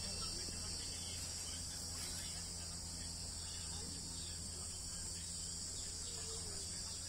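Steady high-pitched chirring of insects, with a low steady hum underneath.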